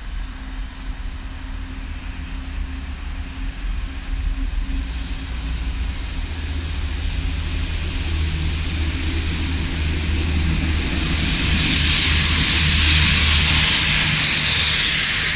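Class 66 diesel locomotives passing through at speed: the two-stroke V12 engines drone and grow steadily louder as they approach. From about two-thirds of the way in, a loud hiss of the Rail Head Treatment Train's high-pressure water jets blasting the rails takes over as the tank wagons pass, with wheels rumbling underneath.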